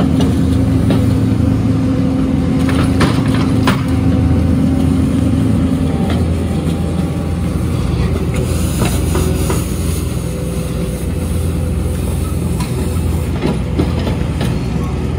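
Diesel road-construction machinery running steadily: a Cat skid steer sweeping broken asphalt with its rotary brush attachment, with a tracked road milling machine working close by. A continuous low engine hum, with a few sharp knocks and scrapes.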